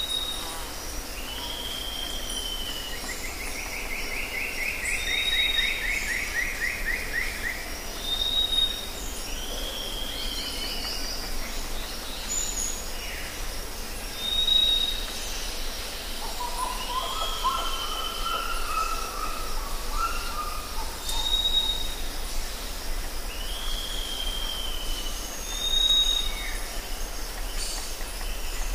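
Several birds singing over a steady low hum. One call repeats about every six seconds: a short high whistle followed by a downslurred note. A long rapid trill comes in the first few seconds, and a lower warbling phrase in the middle.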